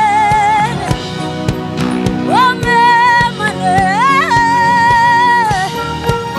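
Live gospel worship singing: a lead voice sings long held notes with vibrato, sliding up into them, over a band with held chords and a steady beat.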